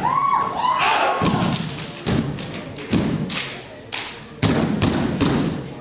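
A step team's routine: about a dozen loud stomps and claps struck in unison in an uneven rhythm, with a few shouted calls from the performers in the first second.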